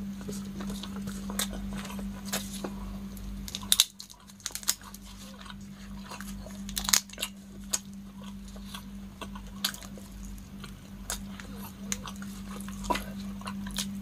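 Close-up eating sounds: chewing, with sharp crunches and crackles as giant freshwater prawns in butter garlic sauce are eaten and their shells are peeled apart by gloved hands. The loudest crunches come about 4 and 7 seconds in, over a steady low hum.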